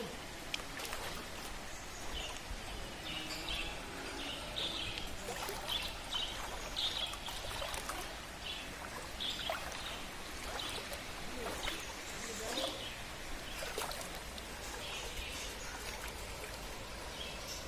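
Muddy floodwater of the overflowing Thamirabarani river running steadily through a street, with short bird chirps now and then.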